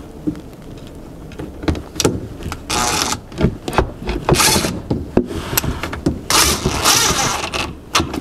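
Cordless drill/driver driving screws into a cabinet door hinge, running in several short bursts from about three seconds in, with clicks of the bit and screw between them.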